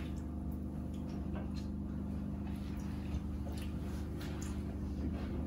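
Someone chewing a mouthful of roast butternut squash: faint, soft mouth clicks and squishes scattered over a steady low hum.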